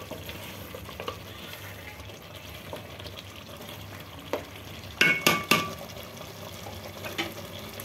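A metal spoon stirring chicken yakhni in an aluminium pot, with soft scrapes and clicks over a faint, steady sizzle of the gravy cooking. About five seconds in come three or four sharp metallic knocks of spoon on pot with a brief ring, the loudest sounds here.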